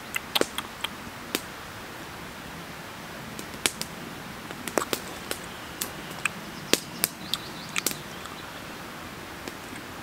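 Scattered sharp clicks and crackles at irregular intervals, a couple of dozen over ten seconds, over a faint steady hiss.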